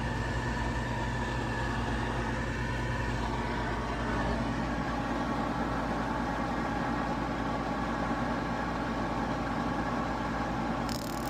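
Goodman GPH14 gas pack running with a steady motor hum from its draft inducer. About a second before the end a sudden hiss with rapid clicking sets in as the spark igniter fires to light the burners. The spark does not sound consistently strong, which the technician puts down to a failing control board.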